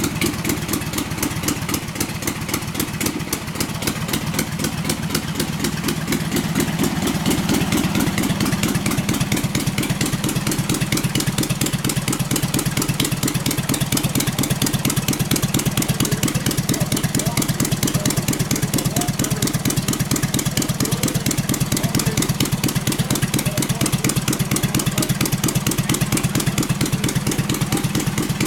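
Restored vintage Drake midget racing engine, out of its chassis, running steadily at idle with a rapid, even exhaust beat. It is a little quieter for the first several seconds, then holds steady.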